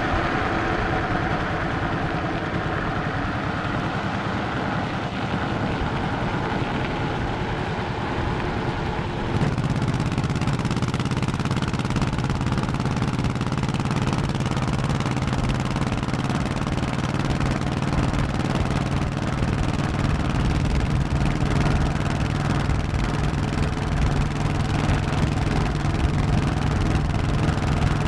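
1100cc Honda motorcycle engine running under way. About nine seconds in the engine note gets stronger and steadier, and added hiss comes in with it.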